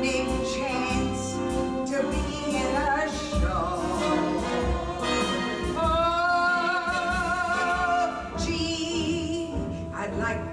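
A woman's voice singing a Broadway show tune over a pit band, with a long note held on a wide vibrato for about two seconds in the middle.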